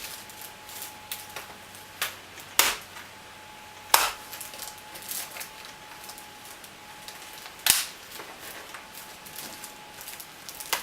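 Sharp plastic clicks and knocks from handling laptop parts, with three louder snaps (at about two and a half seconds, at four, and near eight seconds) and lighter taps between.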